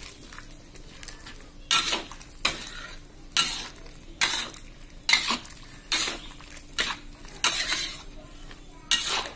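Metal spatula scraping and knocking against a wok while stirring cucumber pieces in broth. About ten even strokes, a little faster than one a second, starting about two seconds in, over a faint steady hum.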